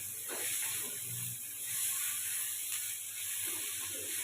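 Sliced bitter melon sizzling in hot oil in a pan, a steady hiss, with irregular clicks and scrapes of the food being stirred.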